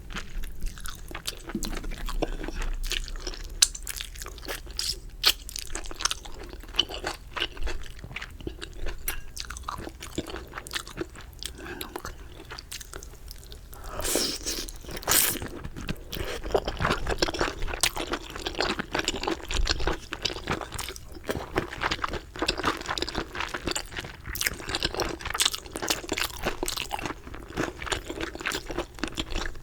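Close-miked eating of chicken: crunching bites and chewing with many sharp crackles. The crunching gets denser and louder about halfway through.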